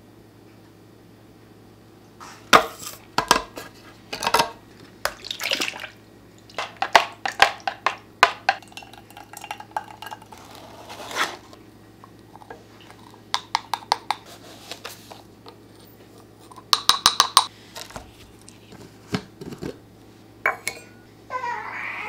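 Glass jars, a measuring spoon and metal measuring cups clinking and knocking on a wooden counter as baking ingredients are measured out, in scattered clusters of sharp taps, over a faint steady hum.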